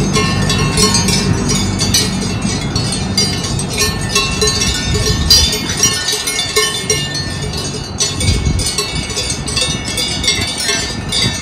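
Cowbells on grazing cattle clanking irregularly. A low rumble from the passing rack railway car fades out about halfway through.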